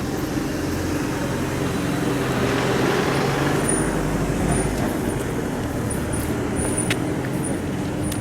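Road traffic: a motor vehicle's engine running steadily, with a louder swell of passing traffic about three seconds in. Short high squeaks come in over the second half.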